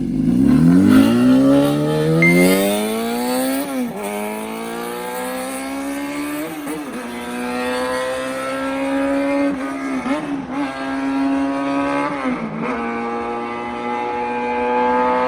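Honda Jade 250 inline-four revved hard through a 4-2-1 aftermarket exhaust. The revs climb steadily for about four seconds, drop, then are held high with a few short dips.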